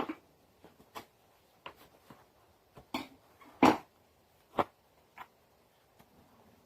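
Scattered short clicks and rustles of guitar-kit accessories and packaging being handled, the loudest two a little past the middle.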